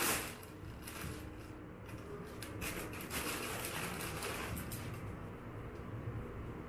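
Thin plastic bag crinkling and rustling as two cats walk on it and paw at it, in irregular crackles for the first three seconds, then softer rustling.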